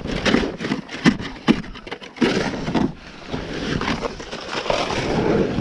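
Plastic snow shovel chopping into and scraping packed snow around a car's wheel to dig out the stuck car: a few quick chops, then longer scrapes.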